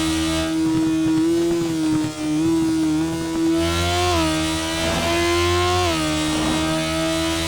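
Sport motorcycle engine running at high revs under way, a steady drone whose pitch drops and climbs again a few times as the revs change.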